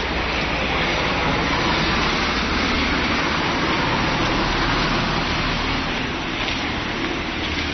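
Road traffic: cars driving through a railway underpass, a steady rush of tyre and engine noise that swells in the middle and eases near the end.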